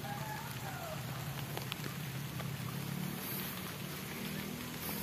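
Light drizzle falling, a soft steady hiss with scattered faint drop ticks, over a faint steady low hum.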